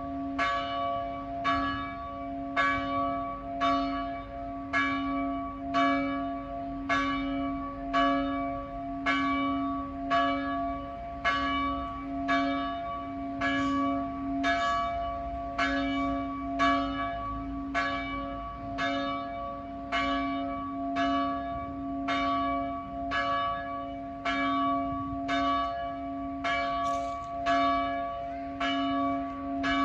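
A large bronze church bell, cast by the Silesian Bell Foundry in 1948, tolling: its clapper strikes about once a second, and a steady low hum rings on between the strokes.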